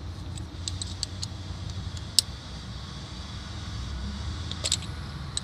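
Light metallic clicks and taps of an Allen key against the brass valve of a nitrogen charging kit on a hydraulic breaker, heard while the gas charge pressure is being set. There is one sharper click about two seconds in and a quick little cluster near the end, over a steady low rumble.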